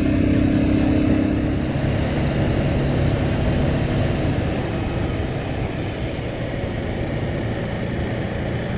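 Motorcycle running on the move: a steady engine hum, clearest in the first second or two, under an even low wind and road noise.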